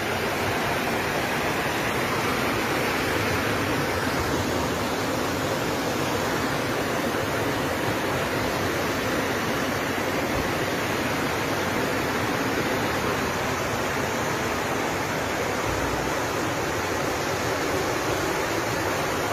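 Fast-flowing floodwater rushing down a town street: a steady, unbroken rush of water.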